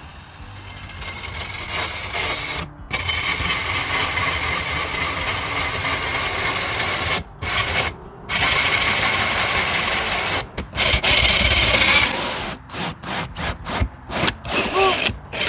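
Hart cordless drill driving a hole saw through an RV's exterior wall: a steady grinding cut that stops briefly a few times, then turns into short stop-start bursts near the end.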